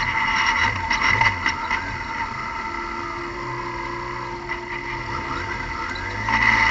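Car engine idling under a loud high hiss. The hiss eases about two seconds in and comes back strongly near the end, with a few clicks in the first two seconds.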